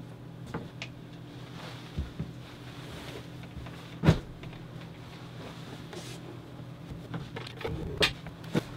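Knocks and bumps from a trailer's dinette table and cushions being handled and moved, the loudest a sharp knock about four seconds in and another near the end, over a steady low hum.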